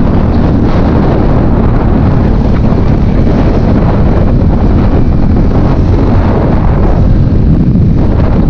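Heavy, steady wind rush buffeting the camera microphone on a motorcycle riding at speed, with the bike's engine running underneath.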